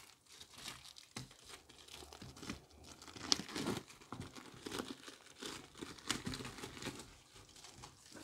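Plastic shrink wrap being torn and peeled off a cardboard collector's box, crinkling and crackling irregularly, with one sharp crackle about three seconds in.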